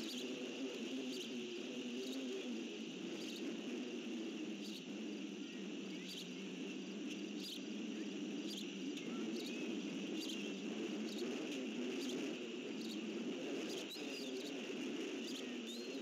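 Steady outdoor ambience: a continuous high insect drone, like crickets, over a low, even rushing noise, with a few faint short chirps near the end.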